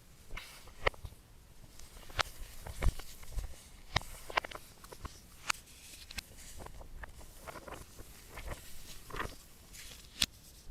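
Hands handling hard objects: about a dozen irregular sharp clicks and taps, with soft rustling between them.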